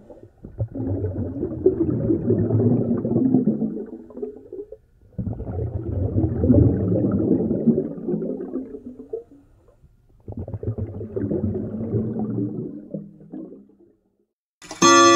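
Spooky sound effect of a low, rumbling growl, in three swells of about four seconds each. Just before the end a bright clock-like chime begins.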